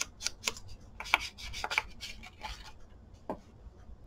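Ink blending tool scrubbed and dabbed against paper in a string of short, uneven strokes, inking the page edges.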